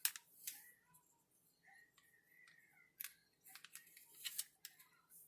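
Faint scattered clicks and light scrapes of a spoon against a sauce container and plate as caper sauce is spooned onto the chicken, with a thin squeak in the middle.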